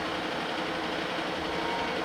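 Diesel engine of a Mercedes-Benz LF 10 fire engine running steadily.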